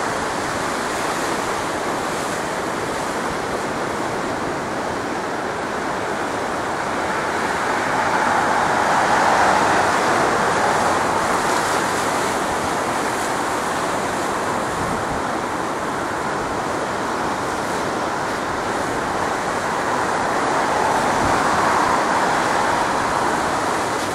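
Steady rushing roar of a distant Airbus A320's IAE V2500 jet engines at taxi power, mixed with wind, swelling slightly about a third of the way in and again near the end.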